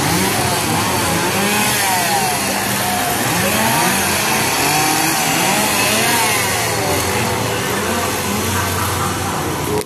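Several two-stroke chainsaws revving over and over, their overlapping engine notes rising and falling in pitch.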